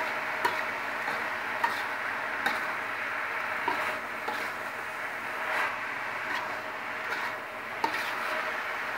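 A wooden-handled spatula stirring and scraping chopped cassava leaves around an aluminium wok, with irregular clicks as it knocks the pan, over a steady hiss.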